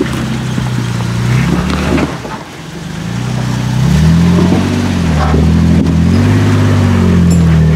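Jeep Wrangler JK Rubicon's engine revving as it crawls up a rocky ledge. The revs sag briefly about two and a half seconds in, then climb and rise and fall in short pulls.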